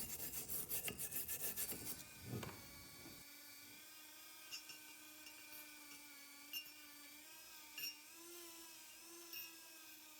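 Rhythmic hand rubbing strokes on metal, about four to five a second, stopping about two seconds in. Then a small rotary tool runs at a steady, slightly wavering pitch, with a few light ticks.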